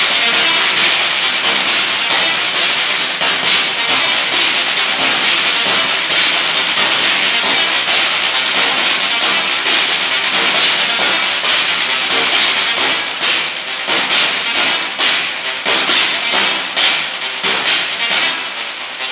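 Live electronic music from a drum machine and synthesizers: a dense hissing, noisy texture that turns choppy in the second half, breaking into rapid stuttering pulses.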